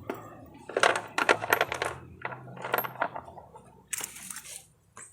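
Loose metal parts and tools clinking and rattling as they are handled, in two irregular clusters of sharp clinks with brief metallic ringing, then a short scrape about four seconds in.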